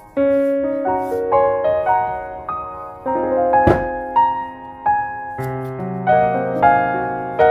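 Background solo piano music: a gentle melody of single notes, each fading after it is struck. One sharp click sounds about halfway through.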